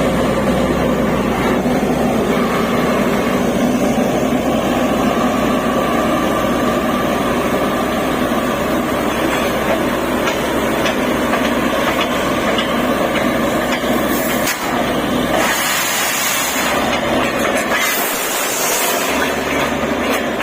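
Borewell drilling rig running steadily, its engine and drilling machinery droning loudly. About 15 seconds in, the sound shifts: a loud hiss joins, and the low rumble drops away soon after.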